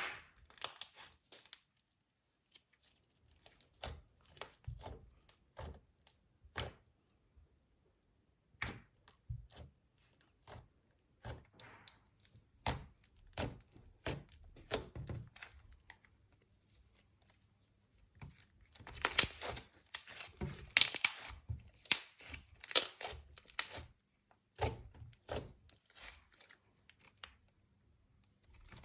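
Slime being kneaded and stretched by hand, with irregular crackling and popping clicks that come thick and loud for a few seconds past the middle.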